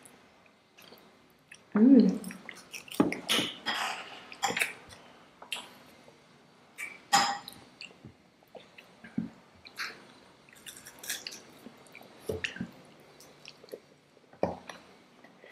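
Close-miked chewing and wet mouth sounds of people eating Indian sweets, with scattered soft clicks and crackles, and a short vocal sound about two seconds in.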